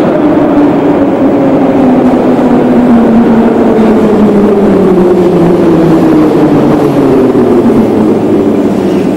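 Moscow Metro train pulling into the station and braking: a loud rumble with a steady falling whine from its traction motors as the train slows.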